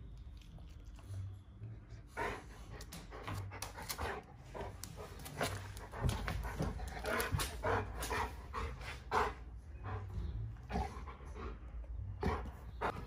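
Golden retriever panting in short, quick, irregular breaths, starting about two seconds in and getting louder about halfway through.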